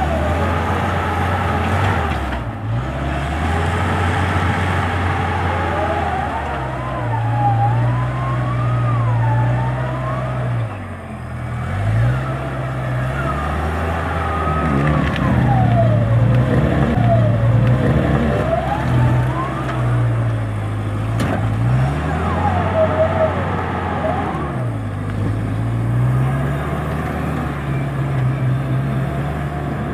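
Nissan Terrano 4x4's engine labouring as it crawls over rough ground, revs rising and falling several times. Over it a higher wavering tone slides slowly up and down.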